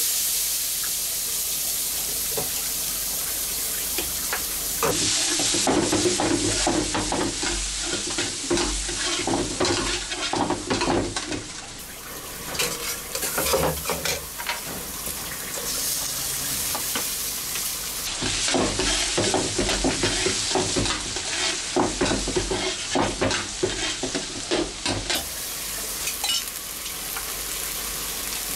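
Chopped onions sizzling in hot oil in a wok, a flat metal spatula scraping and stirring them in two long bouts, the first starting about five seconds in and the second just past the middle.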